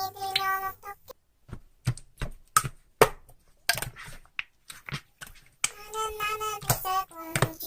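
A high-pitched voice holds drawn-out notes, then stops. About four seconds of sharp, irregular clicks and taps follow, and then the high voice returns with more held notes.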